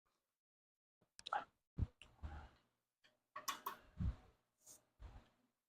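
Scattered clicks and taps with a few short, dull thumps from hands working a fat tire and tube onto an e-bike rim.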